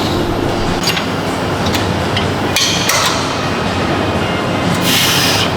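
Gym weight machine in use: clanks and knocks of metal over a steady din, with a short hiss near the end.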